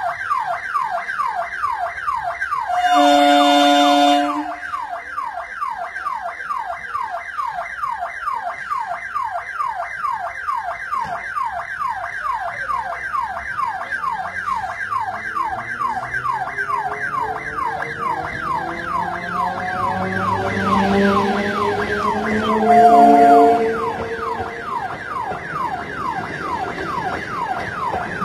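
A level-crossing electronic warning siren sounding continuously, a rapid repeating falling tone. The EMU electric train sounds its horn twice, once a few seconds in and again near the end. In between, the whine of its traction motors rises in pitch as it accelerates away from the station.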